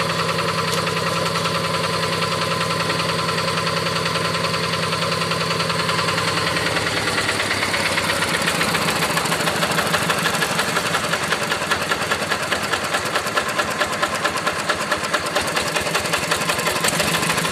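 Diesel engine of a two-wheel rice-field hand tractor running with a rapid, even knocking beat. About six or seven seconds in, the beat changes and grows a little louder as the engine speed shifts.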